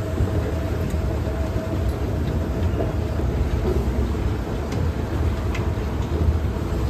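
Escalator running: a steady low rumble of the moving steps and drive, with a thin steady hum over it for the first few seconds.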